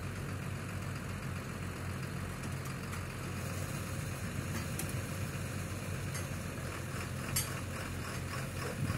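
A tractor's diesel engine idling steadily. A few faint clicks or knocks sound over it, the clearest about seven seconds in.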